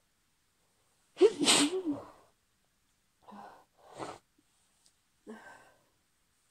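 A woman sneezing from hay fever: one loud sneeze with a voiced cry about a second in, followed by three shorter, quieter breathy sounds.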